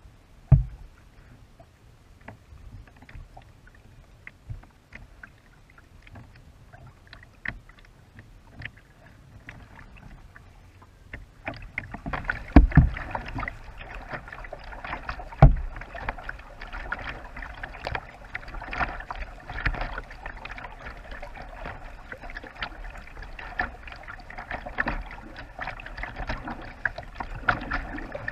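Sea kayak being paddled on flat water: small paddle drips and clicks at first, then partway through a steady rushing and splashing of water along the bow, with two knocks soon after it begins.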